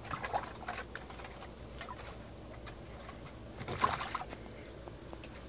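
Water sloshing and splashing in a shallow plastic kiddie pool as a French bulldog moves about in it, with a louder burst of splashing about four seconds in.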